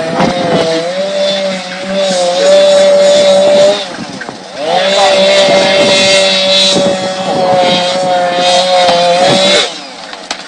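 Two-stroke chainsaw running at high revs in two long stretches, easing off briefly about four seconds in and dropping away near the end.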